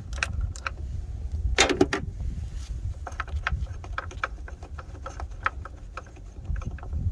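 Socket ratchet clicking irregularly as the bolt on a car battery's hold-down bracket is loosened, with metal tool clatter and a louder clatter about a second and a half in.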